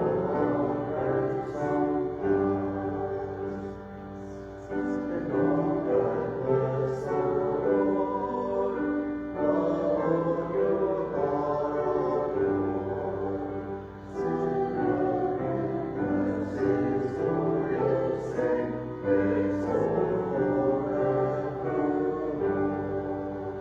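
Voices singing a sacred choral piece with keyboard accompaniment, in phrases with brief pauses, the music dying away near the end.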